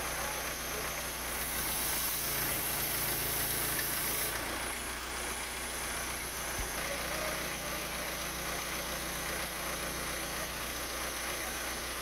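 Case 580E Super E backhoe loader's diesel engine running steadily. A high hiss rides over it for about three seconds near the start, and a single short knock sounds about halfway through.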